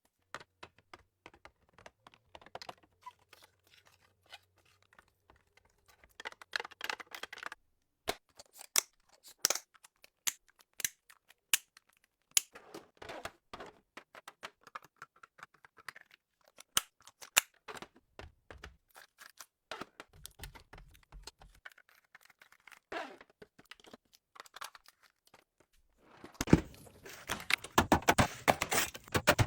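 Food packaging and containers being handled while a fridge is restocked: scattered clicks and knocks of items set down, with rustling and tearing of packaging. About 26 seconds in, a dense, rapid clatter starts and grows louder.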